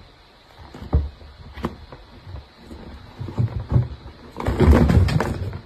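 A cat moving about on stacked leather bags: scattered soft knocks and scuffs, then a louder, longer scuffling clatter about four and a half seconds in.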